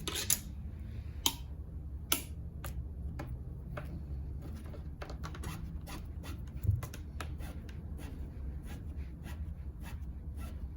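Irregular sharp clicks and taps of small parts and tools being handled, over a steady low hum. A louder dull thump comes about two-thirds of the way in.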